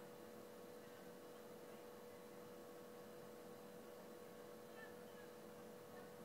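Near silence with a faint steady hum, and a couple of faint brief chirps about five seconds in.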